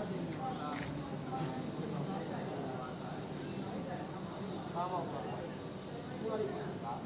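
Crickets chirping: short, high chirps of a few quick pulses each, repeating every second or so.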